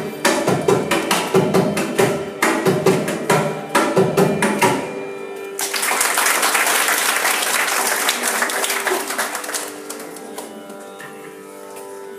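Mridangam playing a rapid run of closing strokes that stops about five seconds in, followed by audience applause for about four seconds. A quieter steady drone remains near the end.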